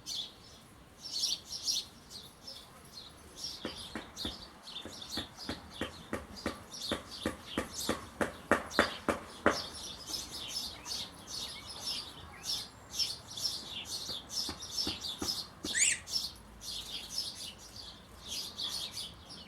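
Small songbirds chirping: a steady stream of short, high chirps, with a run of sharper clicking notes coming faster from about four to nine and a half seconds in, and one downward-sweeping call about sixteen seconds in.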